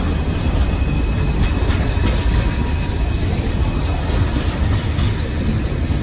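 Freight train cars, boxcars and a tank car, rolling past close by: a steady, loud rumble and rattle of steel wheels on the rails.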